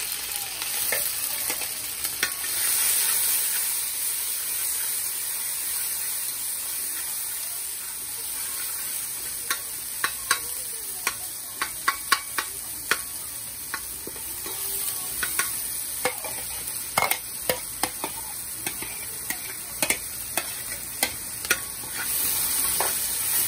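Chopped onion, pimento pepper, tomato and garlic frying in hot oil in a metal pot: a steady sizzling hiss, loudest in the first few seconds, while a spoon stirs them. From about ten seconds in come repeated sharp clicks of the spoon striking and scraping the pot.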